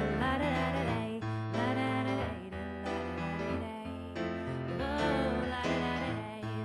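A woman singing a slow song into a microphone, accompanied on a Nord Stage 2 keyboard with held low notes that change about once a second.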